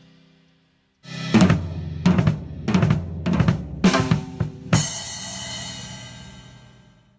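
Rock drum kit played alone: a short fill of about six heavy drum strikes, roughly two a second, ending on a cymbal crash that rings on and slowly fades away.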